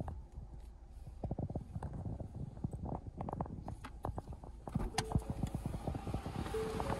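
Clicks and knocks of things being handled inside a car cabin. From about five seconds in, the Ford Mondeo's dashboard warning chime sounds twice in short beeps, about a second and a half apart, while the general background noise grows louder.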